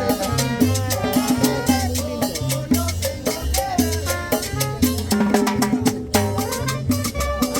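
Upbeat Latin tropical dance music: a repeating bass line under steady percussion and a melody line.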